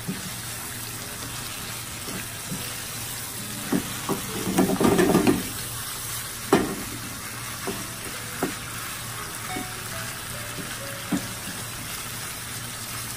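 Chicken in sambal sauce sizzling in a frying pan while it is stirred with a wooden spatula. The spatula knocks and scrapes against the pan now and then, busiest about five seconds in, with a sharp knock a little after.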